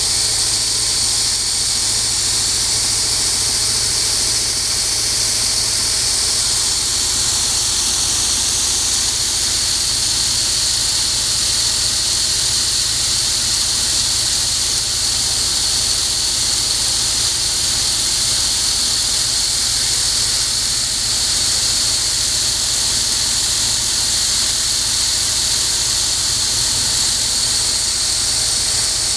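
Small stainless-steel olive paste machine running, a steady high-pitched whine and hiss with a low hum underneath, while it separates the olive pits and skins from the paste.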